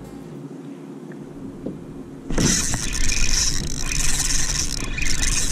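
Loud rushing wind noise on the microphone that starts suddenly about two seconds in, with water splashing as a hooked fish thrashes at the kayak's side.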